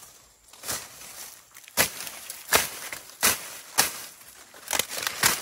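Machete chopping at sugarcane: about seven sharp strikes at uneven intervals.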